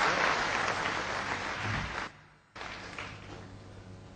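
Audience applauding. The clapping cuts off abruptly about two seconds in and then returns fainter for the rest.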